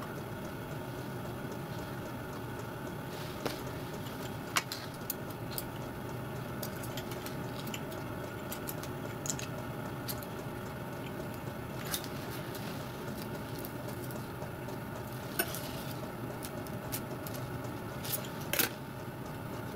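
Scattered light metallic clicks and taps as a cast cylinder block is handled against a miniature steam locomotive's metal frame, over a steady background hum.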